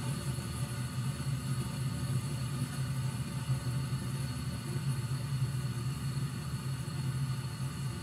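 Gas furnace firing: the draft inducer fan motor and the burner flames running with a steady hum and rumble.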